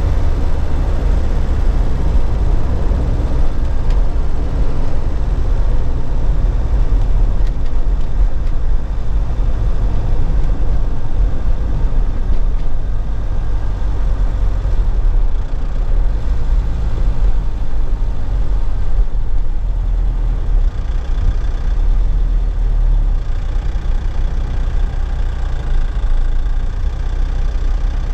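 A 2001 Nissan Cabstar light truck's engine running at a steady low pitch, heard from inside the cab.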